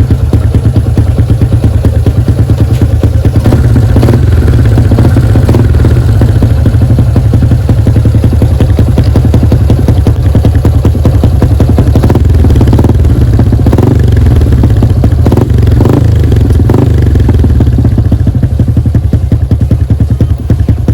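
Yamaha Y15ZR's single-cylinder four-stroke engine running loud and steady through an Espada E4 aftermarket exhaust with its silencer insert fitted.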